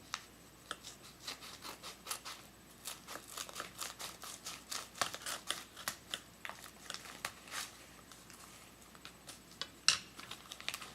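Scissors snipping and packaging being handled as a package is cut open: a run of short, irregular clicks and snips that thins out near the end, with one louder click.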